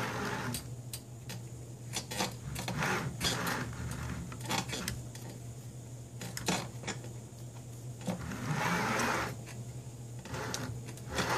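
Scattered light clicks and knocks from hands working at a 3D printer's bed, with a brief scraping rustle near the end, likely business cards being slid under the front of the bed to raise it for levelling. A steady low hum runs underneath.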